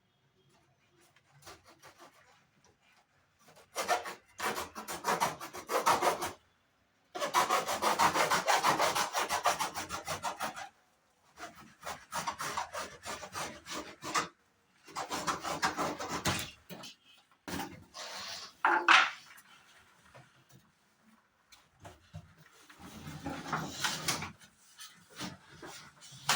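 Rasping, scraping rubs of packaging being worked loose from a new refrigerator, in a string of bursts of one to three seconds each with short pauses between them.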